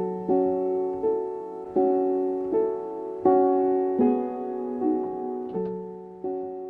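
Piano-like keyboard playing a slow sequence of sustained chords, a new chord struck about every three-quarters of a second and each one ringing and fading before the next.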